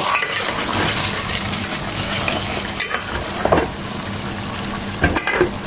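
Pork pieces sizzling steadily in a pan as the braising liquid cooks away almost completely, with a couple of short knocks or scrapes of a spatula against the pan about three and a half and five seconds in.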